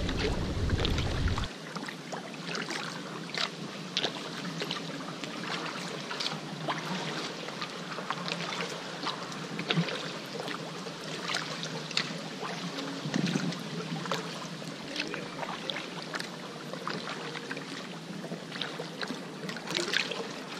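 Kayak paddling on calm water: paddle blades dipping, with small splashes and drips of water, in an irregular patter of little clicks. Wind rumbles on the microphone for about the first second and a half.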